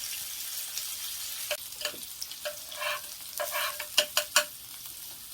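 Food frying in a hot pan with a steady sizzle, hot fat spattering. Several sharp pops and clicks come over the sizzle, the loudest three close together near the end.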